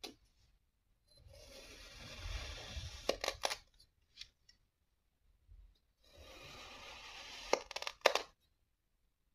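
A knife blade slicing through kinetic sand twice, each cut a grainy crunching hiss that builds and ends in a few sharp clicks.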